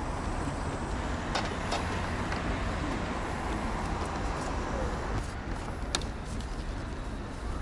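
Steady rumble of road traffic, with a few light clicks as gloved hands work a coaxial antenna cable and its fittings on a satellite dish motor; the sharpest click comes about six seconds in.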